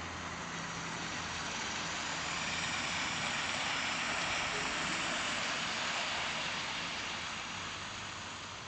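OO gauge model TGV running along garden track: a whirring, rushing noise from its wheels and motor that grows louder as the train passes close, then fades.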